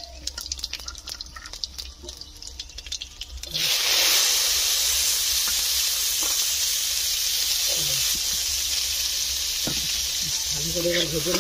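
Shelled peanuts dropped into hot oil in an iron karahi: after a few light clicks, a loud steady sizzle starts suddenly about three and a half seconds in as the nuts hit the oil, and keeps going as they fry.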